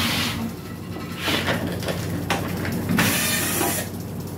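Metal case of an automatic voltage regulator being moved and handled on a wooden workbench: several bursts of scraping and knocking, over a steady low hum.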